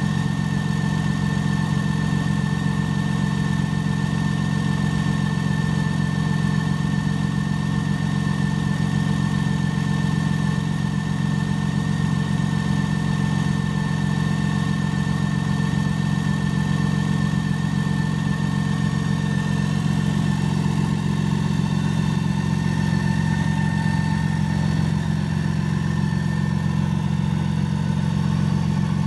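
Campagna T-Rex 16SP's BMW inline-six engine idling steadily, an even hum that does not change.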